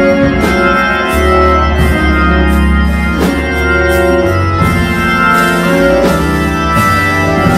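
Hammond organ playing gospel music: sustained chords over held low bass notes that change every second or so. A few sharp percussive hits land every few seconds.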